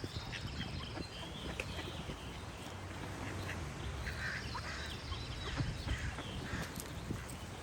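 Ducks quacking repeatedly, with songbirds singing and trilling behind them.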